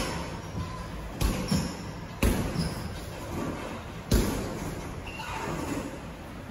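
Boxing gloves landing punches in a sparring exchange: three sharp thuds, the first two about a second apart, with lighter knocks between.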